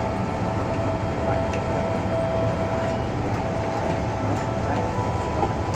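Steady low hum of an airliner cabin on the ground, with faint voices in the background.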